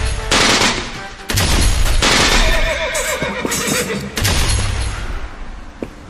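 Loud dramatic sound effects from an overlaid film clip: repeated sudden noisy bursts, with a wavering cry that falls in pitch about three seconds in.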